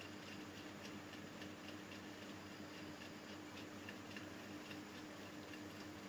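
Faint room tone: a steady low hum with faint, regular ticks.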